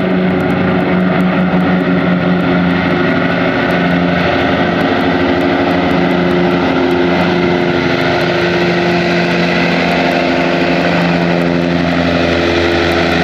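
Martin Mars flying boat's four Wright R-3350 radial piston engines and propellers droning steadily at power as it skims the lake surface, scooping water into its tanks.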